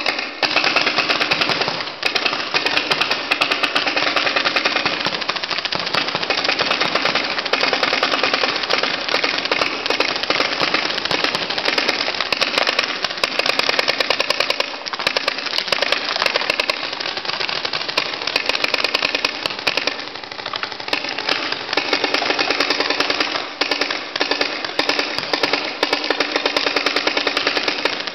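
Paintball markers firing in rapid, near-continuous strings: a dense rattle of shots that starts abruptly.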